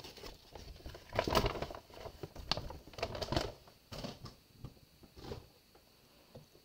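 Carded mascara packages being handled and cleared off a wooden tabletop: a scattered run of light plastic clicks and rustles that dies away after about five seconds.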